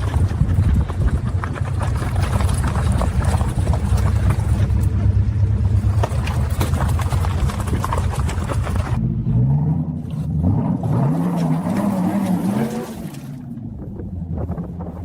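A motor vehicle's engine running steadily with a low rumble. About two-thirds of the way through it gives way to a few seconds of wavering pitched sound, and it is quieter near the end.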